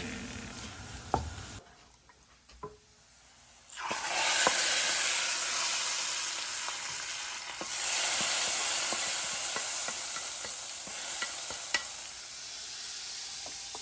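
Food frying in hot oil in a pan on the stove: after a quiet start the sizzle begins suddenly about four seconds in and carries on steadily, growing louder about eight seconds in, with light taps of a spoon stirring the pan.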